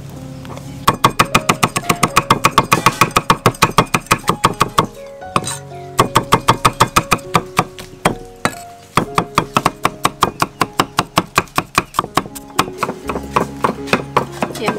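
Cleaver chopping red chillies on a round wooden chopping block: rapid, evenly spaced knocks that start about a second in, pause briefly midway and then carry on. Background music plays throughout.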